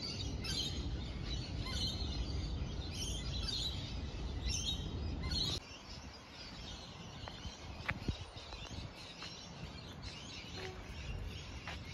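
Birds chirping repeatedly, with short high calls, over a steady low background noise that drops away abruptly about halfway through; fainter chirps and a few light ticks carry on after.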